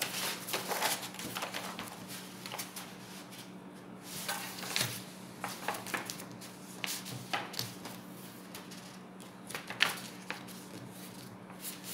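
A large sheet of Bristol board rustling and crackling in irregular bursts as it is folded in half and pressed flat by hand, over a faint steady hum.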